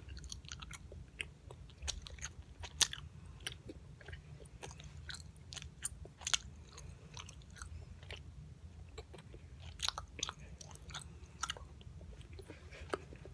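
A boy chewing a piece of bubble gum close to the microphone: a run of irregular mouth clicks and smacks.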